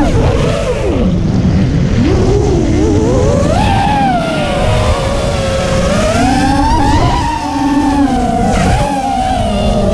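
FPV quadcopter's brushless motors and propellers whining, the pitch rising and falling as the throttle changes, over wind buffeting the onboard camera's microphone.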